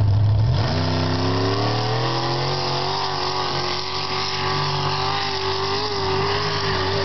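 Mud bog buggy's engine revving up about half a second in, climbing in pitch for a couple of seconds, then held at steady high revs as it drives through the mud pit. A lower engine rumble is heard at the very start.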